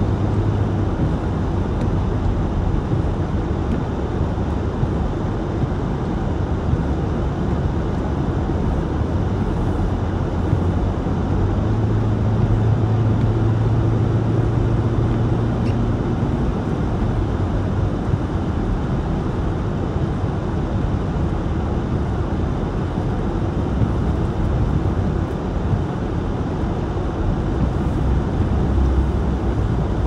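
Steady road noise of a car driving on a wet, slushy highway, heard from inside the cabin: tyre hiss on the wet pavement over a low, even hum.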